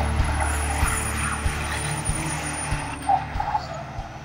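Pickup truck engine running hard during a tyre-smoking burnout, a steady low drone that fades out toward the end. A regular thump about every two-thirds of a second runs underneath it.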